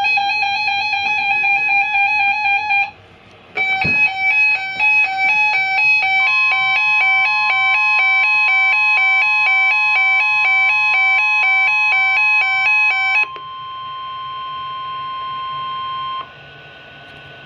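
Weather radio alert: an electronic alarm beeping in a rapid two-tone pattern, with a short break near three seconds. About six seconds in, the steady NOAA Weather Radio 1050 Hz warning tone starts under it. The alarm stops near thirteen seconds, and the steady tone runs on alone until it cuts off at about sixteen seconds.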